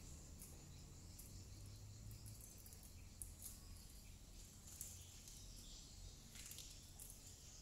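Near silence: faint outdoor ambience with a few faint, short high clicks.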